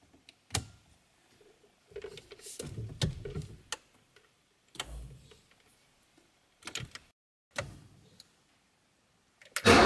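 A scatter of short clicks and soft knocks as the ignition key is worked. Just before the end the 1987 BMW 528i's straight-six engine starts, suddenly loud.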